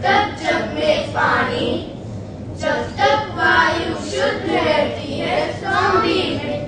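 A group of schoolchildren singing a Hindi song about saving the environment into stage microphones.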